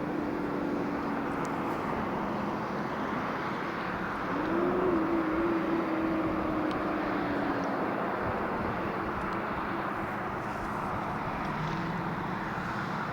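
Car interior noise while driving: steady road and engine noise, with a faint hum that wavers about four seconds in and then slowly drops in pitch.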